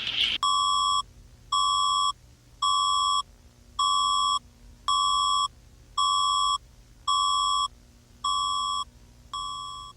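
Emergency-alert attention signal: nine electronic beeps of one steady pitch, each about half a second long, coming about once a second. The last beep fades away.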